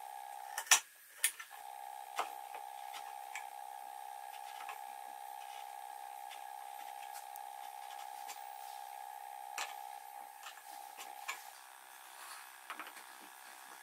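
Hand chisel paring the end of a wooden joint: a few sharp clicks, the loudest two about a second in, then fainter wooden knocks near the end as the joint pieces are handled. A steady faint tone runs underneath and stops about ten seconds in.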